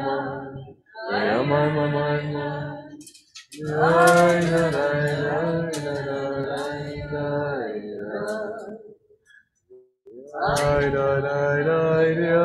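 A group singing unaccompanied in long held phrases with short breaks between them. The longest break comes about nine seconds in and lasts a second and a half, and then the singing starts again.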